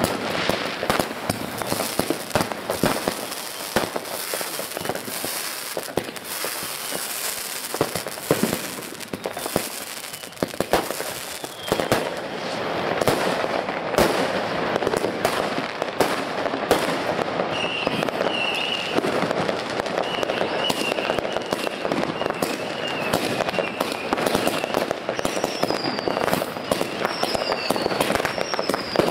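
Consumer firework batteries firing continuously: a dense run of launch shots, pops and crackling bursts. From about halfway through, warbling whistles sound among them, and a few short falling whistles come near the end.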